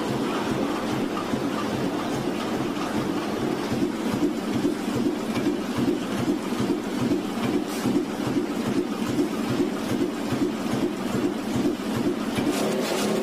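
Banknote printing press running, with a steady, rhythmic mechanical clatter as it carries the printed sheets along under its roller arms.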